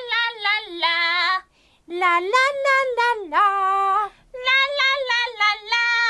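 High-pitched, put-on women's puppet voices vocalising in short, sing-song phrases, some notes held and sliding, with two brief pauses.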